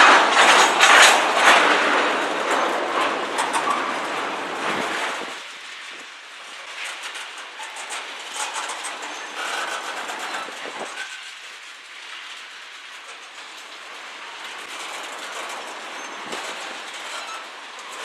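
Freight train tank cars rolling past, their wheels clicking over the rail joints. The sound is loudest for the first five seconds, then drops to a quieter, steady rumble with scattered clicks.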